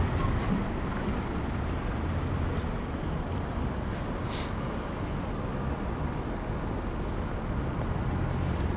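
City road traffic heard from a moving bicycle, with a steady low rumble of wind on the microphone. A short hiss about four and a half seconds in, from a heavy vehicle's air brakes.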